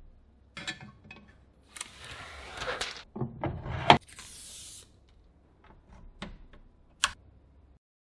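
Handling noises from a resin 3D printer being set up: rubbing and scraping with several sharp clicks. The loudest click comes about four seconds in and is followed by a short hiss, with another sharp click near the end.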